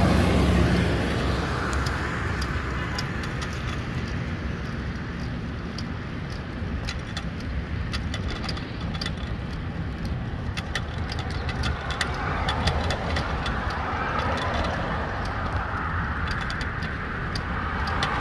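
A hook-lift truck's engine is loud as it passes close by at the start, then a steady low rumble of passing traffic and wind while cycling beside the highway. From about six seconds in come frequent small clicks and rattles from the bicycle.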